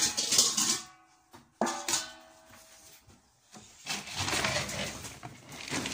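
Stainless steel dog bowls clanging on a tiled floor, each knock leaving a metallic ring that fades: once at the start and again just under two seconds in. A longer rough scraping rustle follows from about four seconds in.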